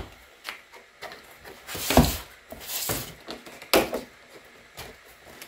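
Plastic corner caps being snapped onto a laser-engraver honeycomb bed over its thin sheet-metal backing plate: a few scattered knocks and clicks, the sharpest about two seconds in and again just before four seconds, with a brief rustle of handling between them.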